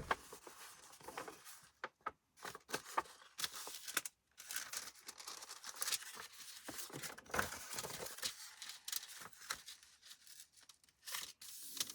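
Scrap paper being handled: repeated short rustling, crinkling and tearing-like scrapes, with small taps.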